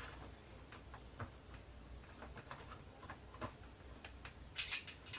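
A mug set's mug, lid and spoon being handled: light scattered taps and clicks, then a quick run of sharp clinks near the end.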